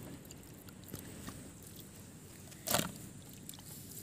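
Faint wet handling of raw fish pieces being washed by hand in a steel plate, with one brief louder scrape about three seconds in.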